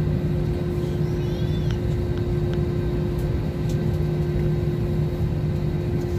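Steady airliner cabin noise: a constant low rumble with an unchanging drone from the engines.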